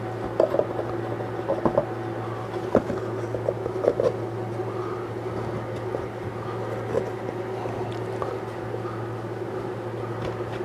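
Small clicks and taps of thin laser-cut bamboo panels being fitted together at their finger joints and pressed into place, mostly in the first four or five seconds. A steady low hum from the shop runs underneath.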